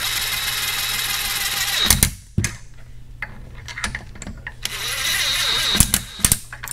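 Cordless ratchet whirring in two runs of about two seconds each as it runs down and snugs bolts, with a few sharp clicks and knocks of the tool and socket between the runs.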